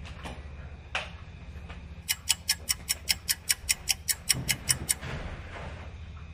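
Rapid clock-like ticking, about six ticks a second, starting about two seconds in and lasting about three seconds, after a couple of single clicks.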